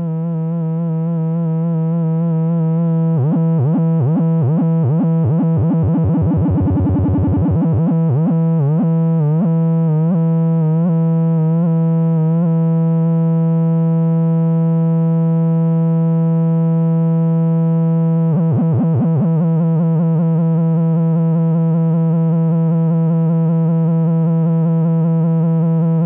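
Low synthesizer tone: a sine wave from a Befaco Even VCO run through a Sherlock Ohms Angel Chorus module in Vibrato mode. A few seconds in the pitch starts to wobble and the wobble speeds up into a fast flutter, then slows and stops about halfway through. It wobbles again briefly later as the module's knobs are turned, then holds steady.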